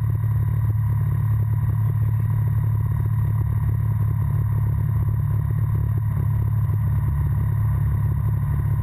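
Breezer ultralight aircraft's propeller engine running steadily while taxiing onto the runway.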